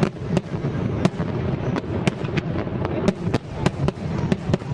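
Aerial fireworks going off in an irregular string of sharp bangs, two or three a second, over a continuous rumble and crackle.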